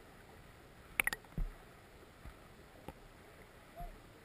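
Muffled underwater sound of a shallow gravel river: a faint steady hiss, broken by a quick cluster of sharp clicks about a second in, another single click later, and two soft low knocks.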